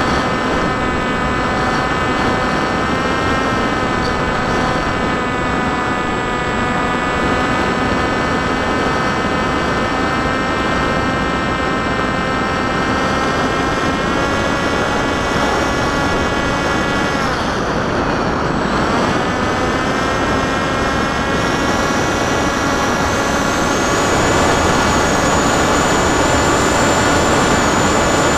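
Electric motor and propeller of a small FPV flying wing whining steadily, with wind rushing past the onboard microphone. About two-thirds of the way through, the whine drops sharply in pitch and then climbs back, as the throttle is eased off and opened again.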